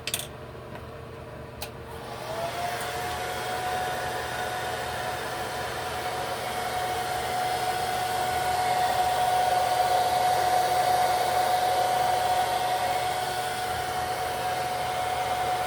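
Handheld hair dryer on low heat starting up about two seconds in after a couple of clicks, then running steadily with a constant whine over its rush of air. It is drying wig adhesive on the lace until it turns tacky.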